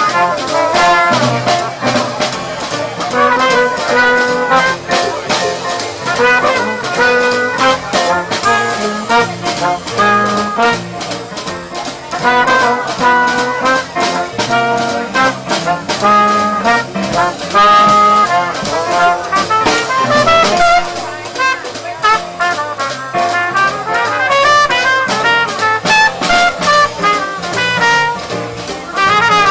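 Small jazz band playing live: trumpet and trombone carrying the melody over a drum kit and keyboard, with a climbing brass run about three-quarters of the way through.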